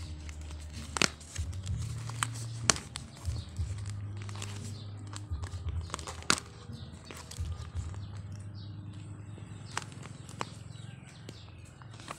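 Clear plastic toy bag being crinkled and pulled open by hand, with irregular sharp crackles and tearing of the plastic.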